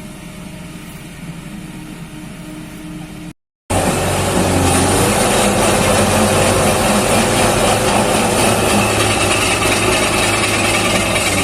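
Heavy diesel engine running steadily. After a cut about a third of the way in, a much louder diesel engine works hard close by, with a deep steady drone and a high whine over it.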